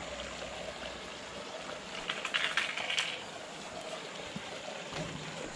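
Small hooked fish splashing in the water as it is scooped into a landing net, a short burst of splashing about two seconds in, over a steady rush of water.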